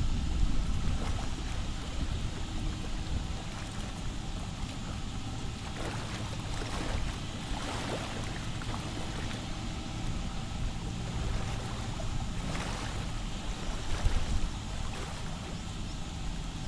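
Seaside ambience dominated by wind rumbling unevenly on the microphone, with faint water lapping against the rock wall.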